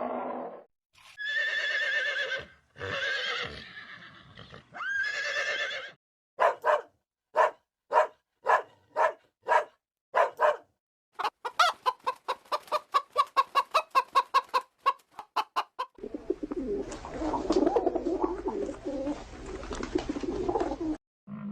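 Chickens calling in a string of short clips. First come three drawn-out calls, then a run of single clucks about two a second, then fast clucking of about five a second, and finally a busy flock calling over one another.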